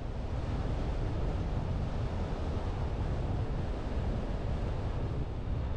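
A vehicle driving along a paved road: steady low road rumble from the tyres mixed with wind noise.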